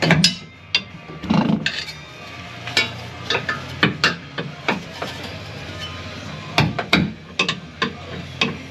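Irregular metallic knocks and clinks of hand tools on the truck's exhaust pipe and hangers as the old exhaust is worked loose, over a low steady hum.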